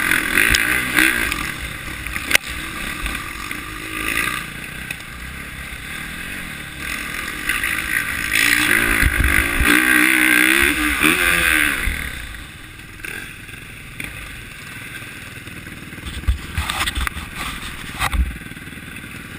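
Dirt bike engine heard from on board the bike, running on and off the throttle; it works hardest about halfway through, rising in pitch, then falls back to low, quieter running with a few knocks near the end.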